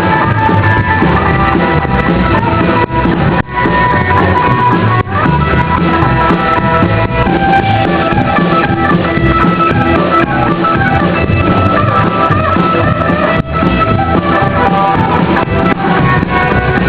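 Rock band playing an instrumental passage of the song, with guitar over a steady drum kit beat.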